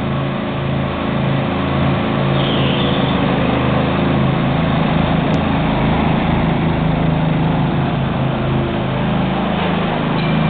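Riding lawn mower engines running steadily as two mowers drive side by side, their pitch shifting a little now and then.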